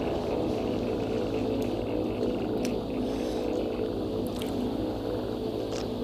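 A steady, many-toned droning hum with a slow wavering in it and a low rumble underneath, with a few faint clicks.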